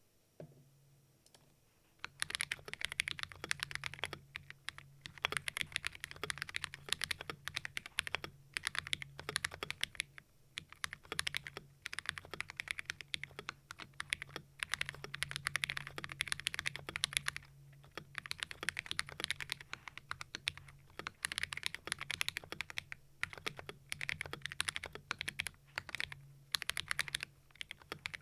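Typing on a Keydous NJ68 Max mechanical keyboard with Akko CS Ocean Blue switches, a brass plate, taped and modded case and modded stabilizers. The sound is a fast, bright clack in bursts with short pauses, starting about two seconds in. The switches and brass plate bring out a lot of high frequencies, giving the clacky sound signature.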